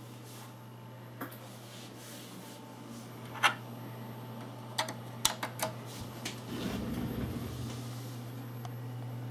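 Steady hum of a desktop computer, with a few sharp clicks and knocks as a USB cable is handled and plugged into the PC: one loud click, then a quick cluster of clicks a second or two later. A brief low rumble follows.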